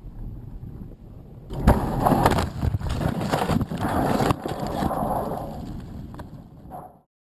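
Low wind rumble on the gondola camera's microphone, then about one and a half seconds in a loud jolt as the Sunrise II balloon gondola touches down on the tundra. A few seconds of knocking and scraping follow as it settles and drags, fading before the sound cuts off abruptly near the end.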